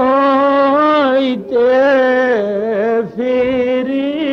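A man singing a slow Bengali devotional chant, stretching each word into long, wavering held notes, with two short breaks for breath.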